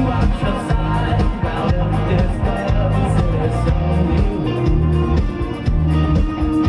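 A rock band playing live, with electric guitar over a loud, dense band sound that holds steady throughout.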